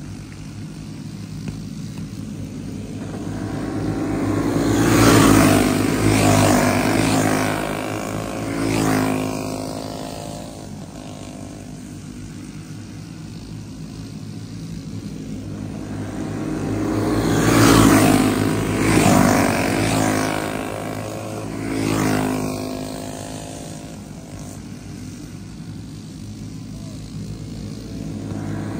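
Flathead racing kart engines at full throttle as the pack goes by on a dirt oval, twice, about twelve seconds apart. Each pass swells up and drops in pitch as the karts go past, and between passes the field's engines fade to a steadier drone from the far side of the track.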